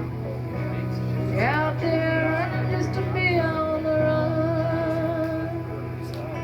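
Music: an instrumental passage of a slow folk-country song. A lead melody slides up about a second and a half in, then holds a long note over steady accompaniment.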